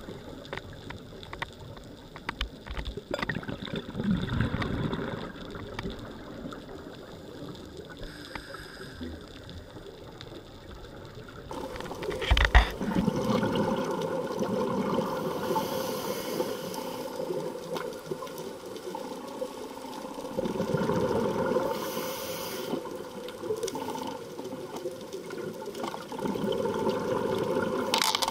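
Underwater sound picked up by a diving camera: muffled rushing and bubbling water that swells louder every several seconds, with a sharp knock about twelve seconds in.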